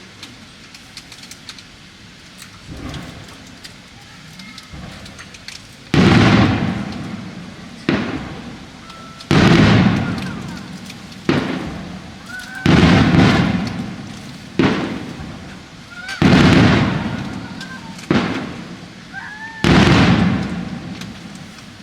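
Fireworks bursting: after quieter crackling, nine sharp booms come about every one and a half to two seconds from about six seconds in, each dying away in a long rolling echo.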